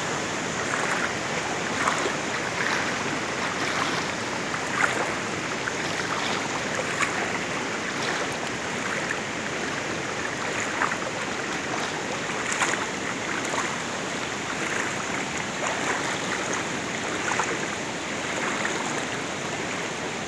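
Swollen, muddy floodwater rushing steadily past as a continuous hiss, with short ticks scattered through it.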